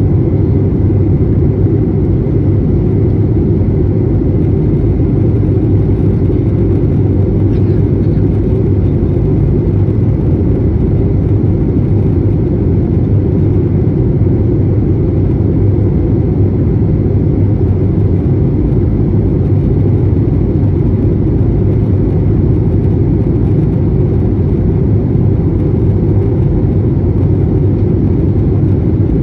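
Steady, loud rumble inside the cabin of an Airbus A321neo, from its running jet engines and the air rushing past the fuselage.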